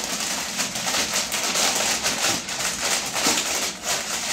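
Foil packet of Lay's potato chips crinkling and rustling as it is handled, an irregular crackle with many small clicks.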